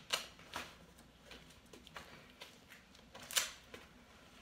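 Hockey shin pad being strapped onto the leg: soft rustling and scraping of the pad and its hook-and-loop straps, with short rasps right at the start and about three and a half seconds in.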